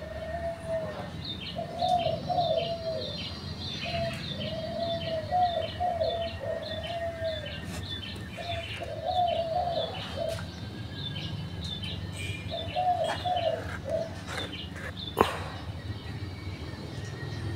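A dove cooing in repeated phrases of several low, arched notes, while a small bird chirps steadily at about three high notes a second. A single sharp click comes near the end.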